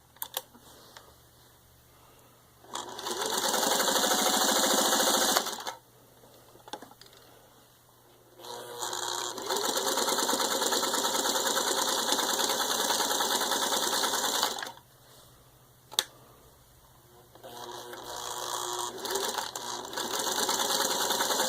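Singer 301A sewing machine stitching through six layers of denim in three runs, speeding up at the start of each, with pauses and a few sharp clicks between runs. It runs at good speed and stitches the thick stack without labouring.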